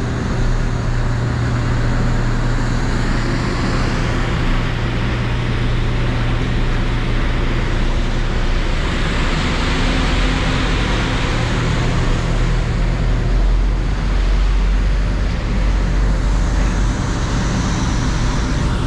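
Passenger ferry's engines droning steadily under way, a constant low hum with a rushing noise over it. The deepest rumble swells for a few seconds in the second half.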